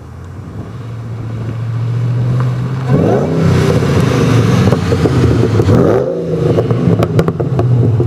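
Supercharged 4.6-litre V8 of a 2006 Mustang GT with an M90 Roushcharger and long-tube headers. Its steady drone swells, then about three seconds in it goes to hard acceleration with a high supercharger-like whine on top. The engine note dips and climbs again at gear shifts.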